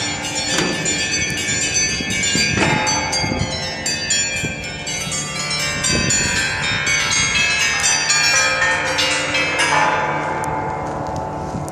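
Many bells of a public bell monument struck in quick, overlapping sequences, ringing together at many different pitches. The strikes stop about ten seconds in and the bells ring on and fade.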